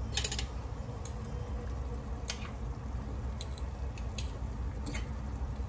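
A few sharp light clicks and knocks, scattered irregularly, from a wire-mesh strainer touching the dish and the boiled potatoes as they are scooped out of their water. A steady low hum runs underneath.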